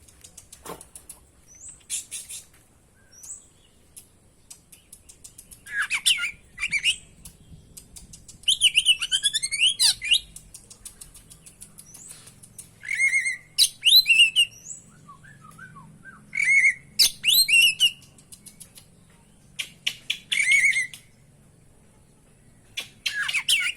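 Oriental magpie-robin singing in loud, varied phrases of quick whistles and trills, separated by short pauses, with phrases mimicked from other birds woven into the song.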